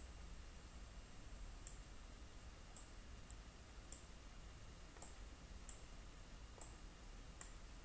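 Faint computer mouse clicks, about eight at irregular intervals, over quiet room tone as keyframe points are selected and dragged.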